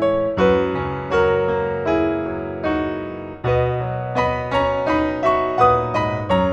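Background piano music: a gentle melody of struck notes, each ringing and fading, over sustained lower chords.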